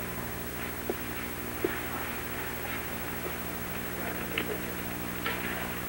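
Office background: scattered light clicks and taps over a steady low hum.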